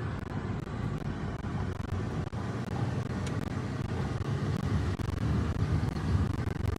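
Van driving, heard from inside the cab: a steady low rumble of engine and road noise.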